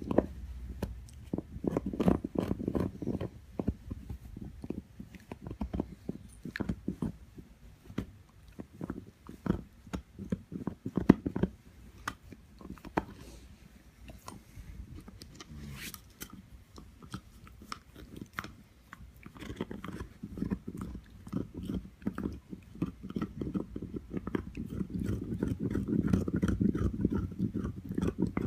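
A young dog gnawing on an antler chew, with irregular hard clicks and scraping of teeth on antler. The gnawing thins out and quiets around the middle and is busiest near the end.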